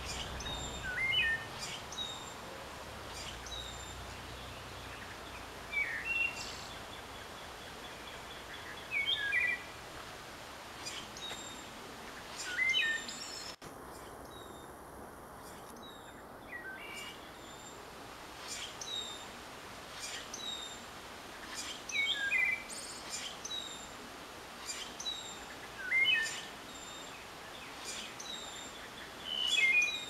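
Wood thrush singing, a short swooping phrase every few seconds, with a pause of several seconds near the middle. Short, high chirps from other birds come in between the phrases.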